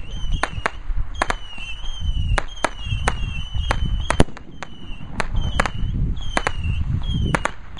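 A 4-inch aerial firework shell bursting overhead: a string of sharp cracks and bangs over a low rumble, with one of the loudest about four seconds in. Short, high, falling whistle-like tones repeat about once a second alongside.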